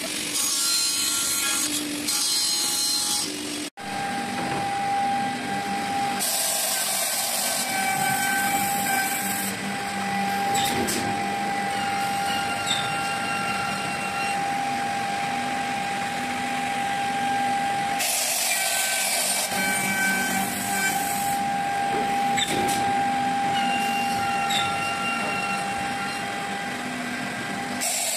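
Woodworking machinery running: a KB 760 edge banding machine gives off a steady whine as panels are fed through it. Twice it has a louder, high cutting noise lasting a few seconds.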